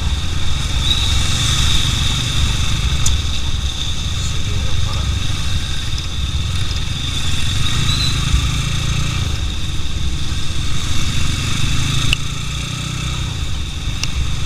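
Motorcycle ride heard on the rider's own camera microphone: engine running under way with low wind rumble on the microphone, and a steady high thin whine over it.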